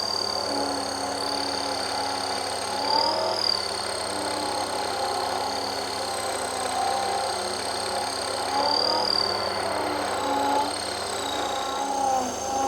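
Metal lathe taking a cut on a brass disc: the motor runs steadily under a high, wavering squeal from the cutting tool, with lower tones that shift as the cut goes on.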